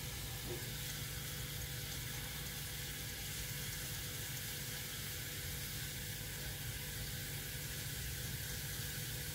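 Sliced onions frying in coconut oil in a small pan, a steady sizzle and bubbling, as the onions turn golden brown.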